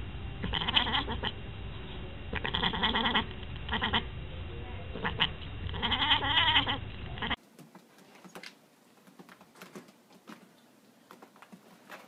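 Siamese-type cat yowling loudly at a window, a string of drawn-out, wavering meows. About seven seconds in the sound cuts off abruptly to a much quieter stretch with only faint clicks.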